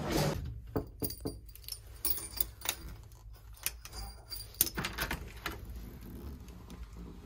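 A room key on a brass tag jangling and clicking against a hotel room door's lock and lever handle as the door is unlocked and pushed open: a run of irregular metallic clicks, the sharpest about four and a half seconds in.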